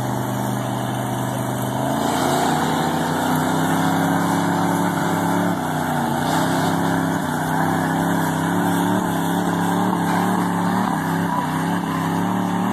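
Engines of two lifted pickup trucks on oversized tyres running hard under load as they pull against each other in a tug-of-war. The engine note jumps up about two seconds in and holds high, wavering as the trucks strain.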